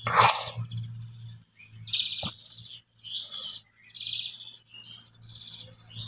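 Birds chirping in short high calls every second or so, over a low steady hum.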